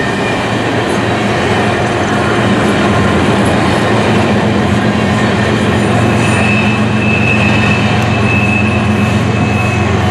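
Steel wheels of coal hopper cars rolling past on the rails with a steady rumble and clatter. A thin, high wheel squeal comes in about six seconds in and holds for several seconds.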